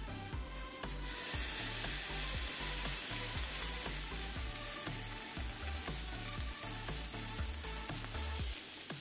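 Shredded cheese, pepperoni, ham and sausage sizzling in a Dash Mini waffle maker as the chaffle cooks under the closed lid. It is a steady sizzle that starts about a second in, heard over background music with a low bass line.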